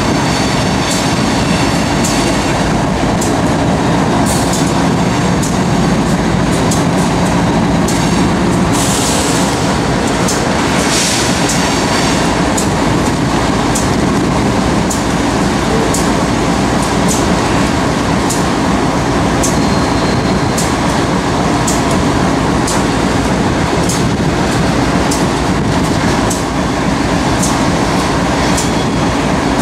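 Freight train rolling past at close range: a steady rumble with repeated clicks of steel wheels passing over rail joints.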